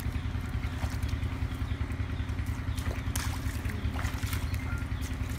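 A motor engine running steadily with an even, pulsing hum, with a few faint splashes of muddy water.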